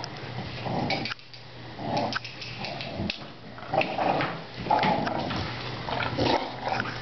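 A pit bull puppy and an English bulldog playing tug-of-war over a rope toy, making short dog noises in bursts about once a second.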